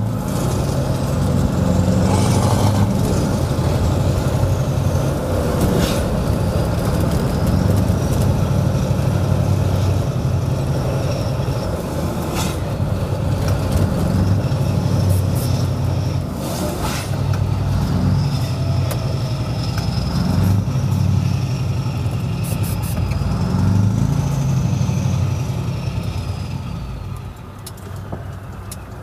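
Scania 164L 580 V8 diesel truck with a loud, open-piped exhaust, driving through town: the engine's revs rise and drop several times. A few short, sharp clicks come in between, and the engine eases off near the end.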